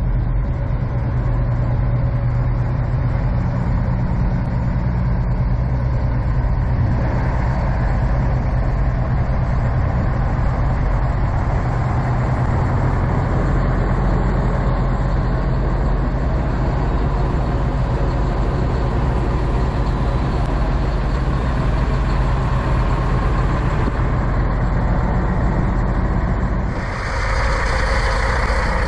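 Diesel engine of a parked Kenworth semi truck idling steadily. Near the end the sound changes to another idling truck with more hiss over the low engine note.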